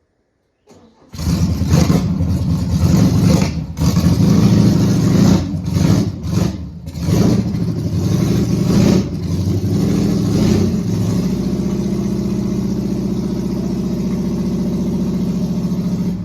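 VW Beetle's air-cooled flat-four engine starting about a second in, revved up and down unevenly for several seconds, then settling to a steady idle.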